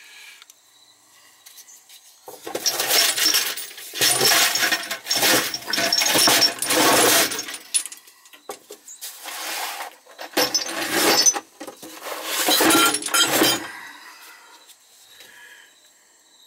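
Black iron pipe nipples clinking and rattling against each other as a gloved hand rummages through a rack of them, in several bursts of a second or two each.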